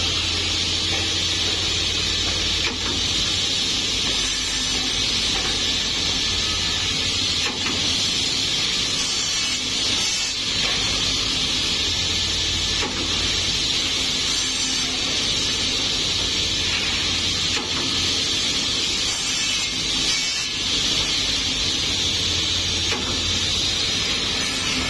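Woodmaster automatic corner-block cutting saw running, its circular-saw motor humming steadily under a constant hiss while it cuts small wooden trapezoid blocks. There are faint knocks every few seconds.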